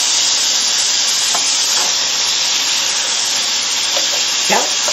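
Lobster tail, beef and tofu sizzling in a frying pan with a steady loud hiss. A slotted turner stirs through it with a few light taps and scrapes.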